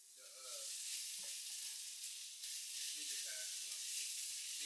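Food frying in a hot pan: a steady sizzle that swells up within the first second and then holds.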